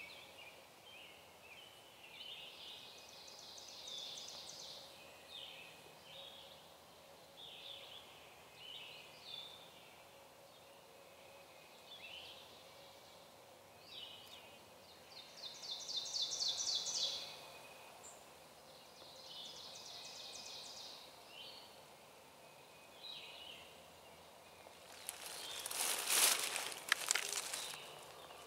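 Several songbirds singing: short chirped phrases throughout and three fast, high trills of a couple of seconds each. Near the end comes a loud rustling crackle of about three seconds.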